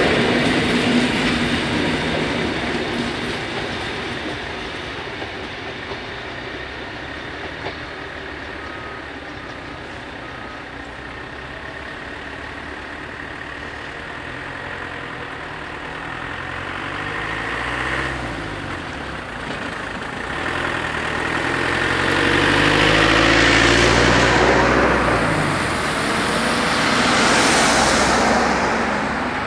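Rolling noise of a passing passenger train's coaches fading away over the first few seconds. After a quieter stretch, road vehicles cross the rails, the loudest a van passing through about two-thirds of the way in, its engine note sliding lower as it goes by.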